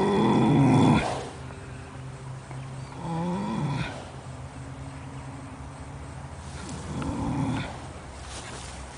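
Standardbred horse snoring in deep sleep: three long, rough snoring breaths about three and a half seconds apart, the first the loudest.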